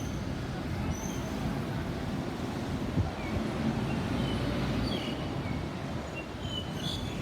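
Steady low rumble of road traffic, with brief high chirps scattered over it.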